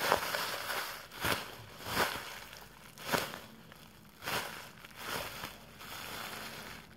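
A clear plastic bag crinkling as hands squeeze a foam squishy toy through it, in short rustling bursts about once a second.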